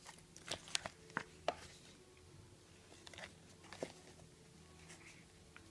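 Plastic packaging crinkling and a small cardboard box being handled while new bearings are unwrapped: scattered short rustles and taps, several close together at first and a few more later.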